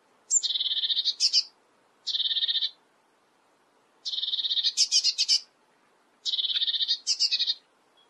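Eurasian blue tit calling: four short bouts of a rapid, buzzy trill, several of them ending in a few sharper, higher notes.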